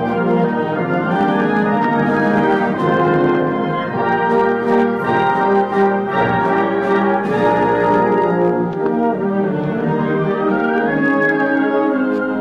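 A large band of brass and wind instruments playing a full, sustained chordal passage with the brass prominent, with a melodic line that rises and falls near the end.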